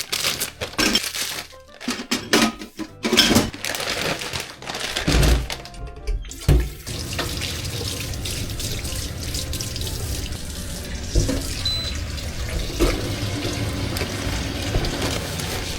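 Several seconds of knocks and clatter, then water running steadily from a tap into a sink.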